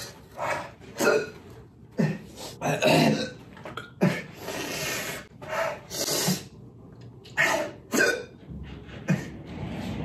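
A man gasping and huffing through his mouth, with sharp breaths in and harsh "hhhaa" breaths out about once a second and one longer hiss partway through. He is reacting to the burn of ghost pepper and habanero hot sauce.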